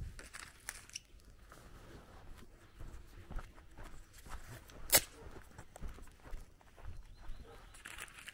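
Footsteps of someone walking, with small scuffs and ticks, and one sharp click about five seconds in.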